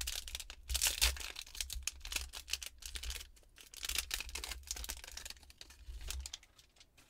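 Foil trading card pack being torn open and its wrapper crinkled in the hands: a dense crackling rustle that dies away about six seconds in.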